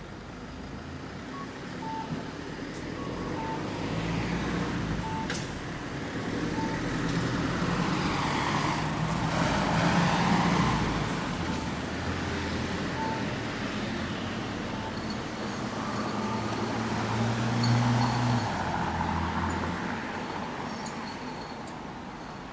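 Road traffic passing close by: cars go past with a swell of tyre and engine noise about halfway through, then a heavier vehicle with a low engine hum passes near the end. A faint short beep repeats about every two-thirds of a second throughout.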